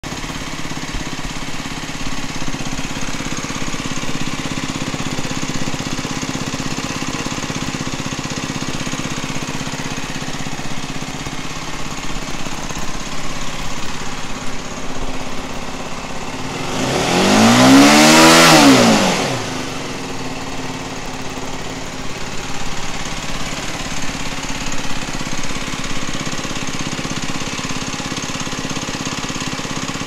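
2021 Aprilia RS 125's single-cylinder four-stroke engine idling in neutral on its stock exhaust, with one rev a little past halfway that rises and falls back over about three seconds.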